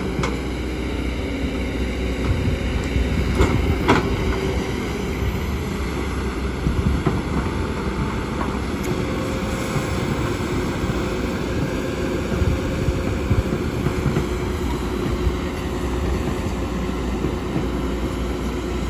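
Kobelco excavator's diesel engine running steadily, with a few sharp metallic knocks in the first four seconds.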